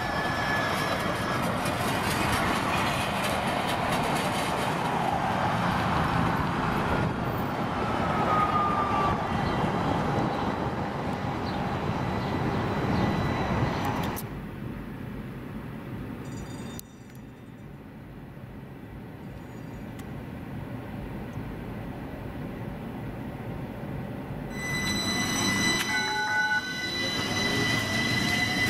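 Electric streetcars running on street track among road traffic: first a loud pass-by, then a quieter stretch with a streetcar farther off. Near the end a streetcar passes close with a steady high whine and some rising tones from its electric drive as it pulls away.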